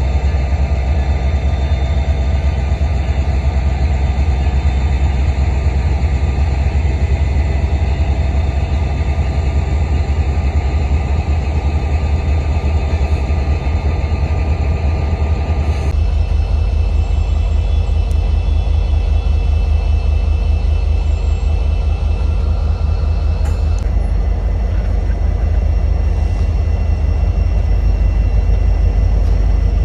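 Diesel locomotive engines running with a steady, heavy low rumble. The sound changes abruptly about halfway through.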